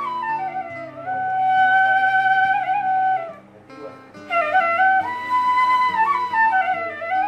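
Bamboo transverse flute (bansuri) played solo, a slow melody of long held notes joined by sliding glides between pitches. The phrase breaks off briefly about three and a half seconds in, then the melody resumes.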